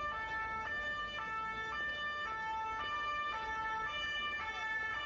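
Police van's two-tone siren, switching back and forth between a high and a low note about every half second.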